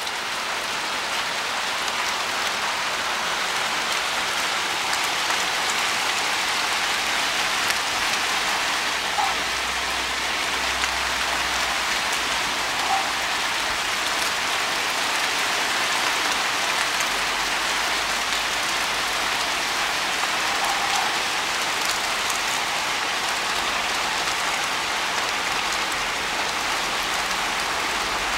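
Hail mixed with rain coming down hard in a shower, a steady dense patter with fine scattered ticks of hailstones striking surfaces.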